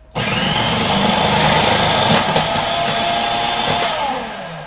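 Cuisinart food processor motor running steadily with its thin slicing disc as butternut squash is pushed down the feed tube. Near the end the motor is switched off and winds down, its pitch falling as it fades.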